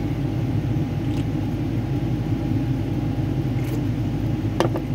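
Steady low mechanical rumble with a faint steady hum above it.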